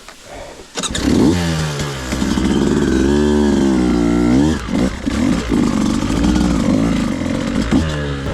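Beta 200RR two-stroke dirt bike engine starting about a second in, then revved up and down with its pitch rising and falling as it pulls away.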